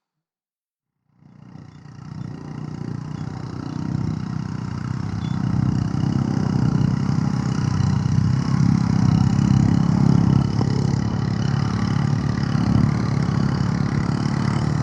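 A vehicle engine running steadily, fading in after about a second of silence and growing louder over the next few seconds.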